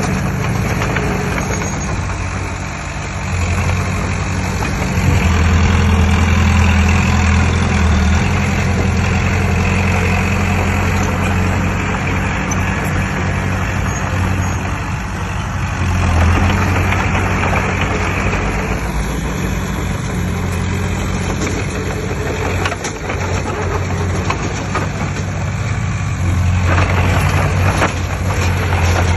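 Diesel engine of heavy earthmoving machinery running steadily, its low note swelling louder about five seconds in, again midway and near the end.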